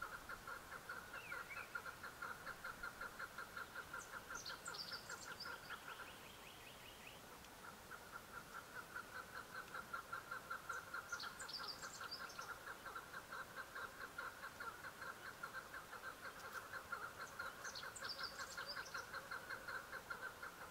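Chukar partridge calling: a long, rapid, even series of clucking notes that breaks off about six seconds in and starts again a moment later. Short high chirps from a small bird come through three times.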